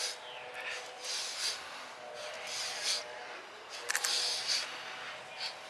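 A man breathing hard through his mouth in repeated sharp exhales, about once a second, while straining through weighted pull-up reps. About four seconds in there is a short metallic clink, the loudest moment.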